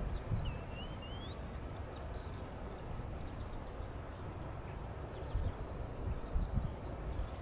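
Small birds chirping and twittering, one with a wavering rising call about a second in and another with a short falling note past the middle, over gusty wind on the microphone and a steady low outdoor rumble.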